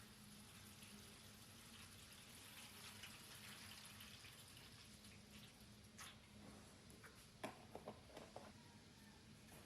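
Faint, steady hiss like trickling water over a low hum, with a few light clicks and taps near the end.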